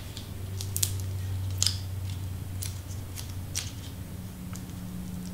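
Light, irregular clicks and crackles of cardstock and double-sided foam tape being handled, peeled and pressed onto a paper layer, over a steady low hum.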